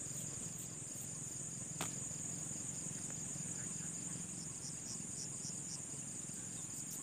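Night insects, crickets, keeping up a steady high-pitched trill, with a fainter chirp repeating about twice a second in the second half and a single click about two seconds in.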